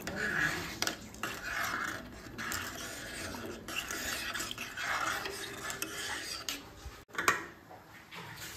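A metal spoon stirring rice and water in a pressure cooker pot, swishing through the liquid with small clinks against the pot. There is a sharper knock about seven seconds in, and then the stirring stops. The rice is being mixed for ghee rice before the cooker is closed.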